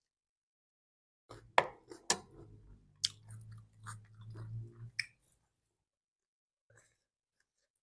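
A person chewing and crunching food, with a few sharp crunches or clicks over about four seconds starting a little over a second in.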